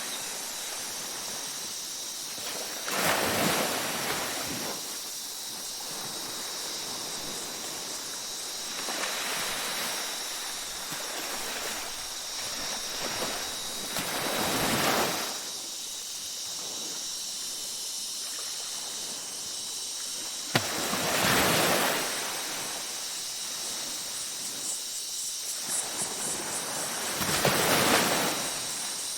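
Ocean waves breaking and washing up on a beach, a surge every five to seven seconds, over a steady high-pitched tone; a single sharp click about two-thirds of the way through.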